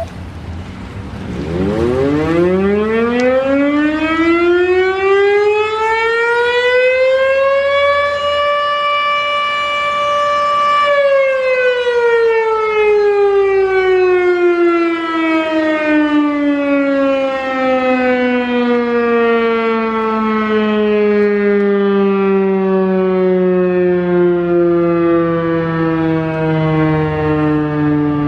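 Sentry 14V fire siren winding up from a low pitch to a steady high tone, holding it for a few seconds, then slowly winding down, its pitch still falling at the end: a long fire signal being sounded on test.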